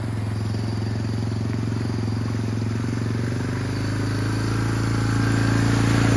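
Honda FourTrax ATV's single-cylinder engine running steadily as it drives through a shallow pond, with water splashing around the tyres. It gets louder over the last couple of seconds as the quad comes closer.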